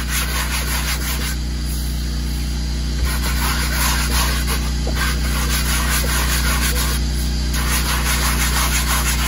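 Small stiff-bristled hand brush scrubbing foamed upholstery cleaner into the cloth of a truck's center console lid, a continuous rasping that stops briefly twice. A steady low hum runs underneath.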